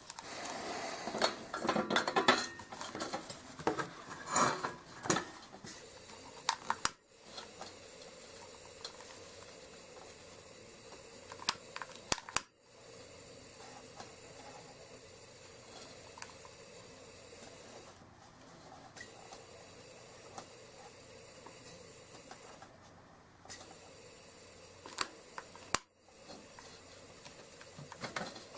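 Metal clinking and rattling as a Coleman Model 220 lantern is handled, for about the first six seconds, with a few single clicks later on. The rest is a faint steady hiss.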